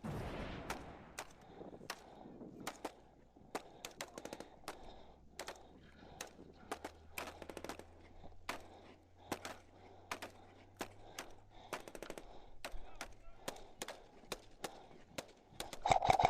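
Scattered airsoft replica shots: faint, sharp snaps at irregular intervals, one to a few a second, with a louder rustling noise near the end.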